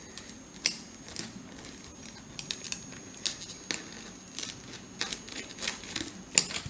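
A utensil scraping and clicking irregularly against a plate while working through a hard pizza base that resists cutting.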